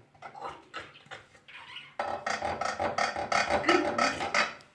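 A toy tool making a rhythmic buzzing rasp of about six strokes a second, used to cut a nail in pretend play. It starts about two seconds in after a few faint taps and cuts off suddenly near the end.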